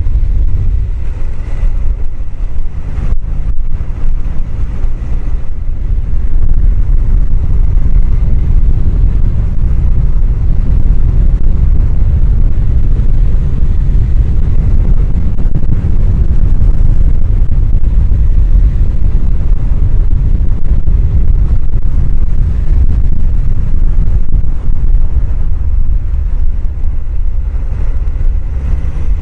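Steady heavy wind rush and low buffeting on a helmet microphone while riding a motorcycle at road speed, air from the helmet's chin-bar vent blowing straight onto the mic and burying the bike's engine.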